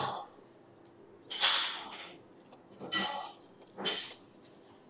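Metal knife and fork clinking and scraping against a ceramic plate while cutting battered fish, in three short bouts about a second and a half in, at three seconds and at four seconds.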